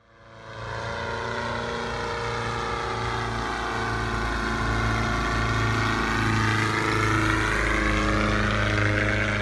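Engine and propeller drone of an 80% scale Fokker D.VII replica biplane in flight. The sound fades in over the first second, then holds steady while its pitch drifts slowly up and down as the plane passes.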